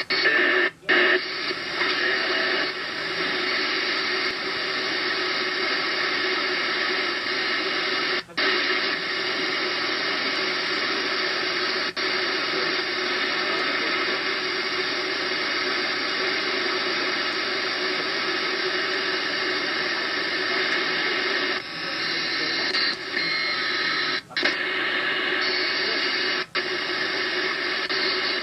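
Web SDR radio receiver tuned in the 2-metre amateur band near 144.8 MHz, giving out steady static hiss with no signal heard. The hiss drops out briefly a few times.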